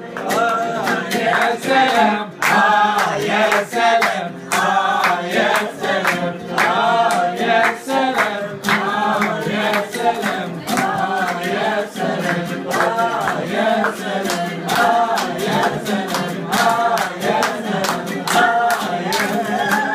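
Several people singing together, men and women, to an oud, with rhythmic hand clapping throughout.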